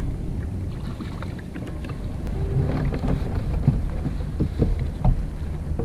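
Wind and water rushing on a kayak, with scattered knocks and rubbing as a crab pot's buoy line is hauled in hand over hand and coiled on the deck.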